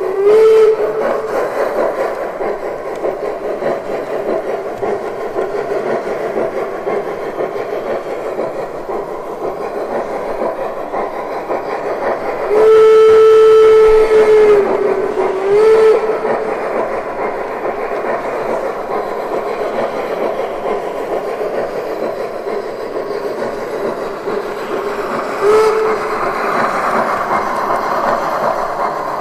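Sound electronics of a 1:32 gauge 1 brass model of the DR Class 18.2 steam locomotive 18 201 on the move: a steady steam running sound with hiss, and steam-whistle blasts. There is a short blast at the start, a long blast a little before halfway that dips in pitch as it ends, then a short toot, and another short toot near the end.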